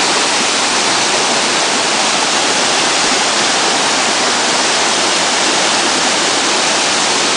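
Waterfall: a steady, loud rush of falling water with no break or change.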